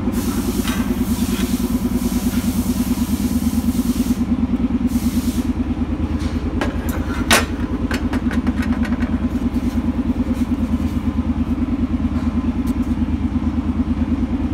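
An engine idling steadily with an even low pulsing. Over it, stainless exhaust pipe sections clink and knock as they are handled, with the sharpest knock about seven seconds in, and there is a hiss during the first five seconds.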